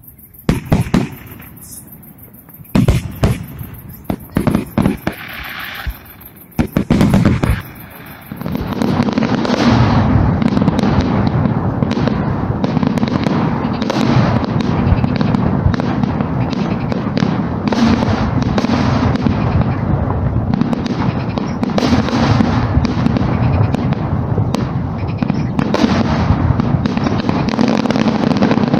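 Fireworks display: separate loud bangs of aerial shells bursting for the first several seconds, then from about nine seconds in a dense, continuous barrage of bangs and crackling.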